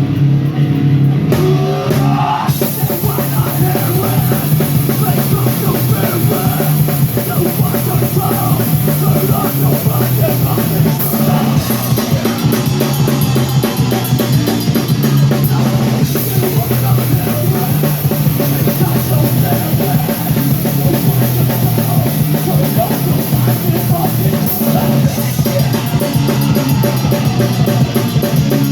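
Live rock band playing loud amplified rock, drum kit and guitars together, with the full band coming in about two seconds in.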